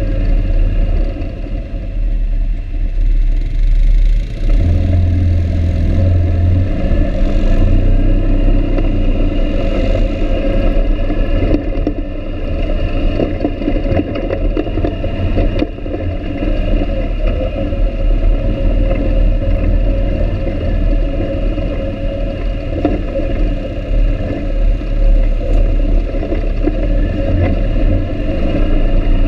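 ATV engine running under way over a rough dirt trail, easing off briefly and then picking up again about four seconds in, with clatter and knocks from the machine going over bumps.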